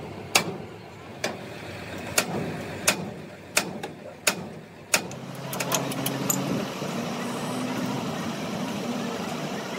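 Sharp metallic clinks and knocks, about one a second, as steel truck axle parts and tools are handled. About halfway through, a vehicle engine starts running steadily at idle.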